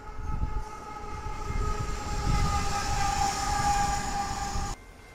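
Union Pacific freight train's open-top freight cars rolling past, a low rumble with rhythmic wheel thumps and a steady high whine over it. It cuts off suddenly near the end.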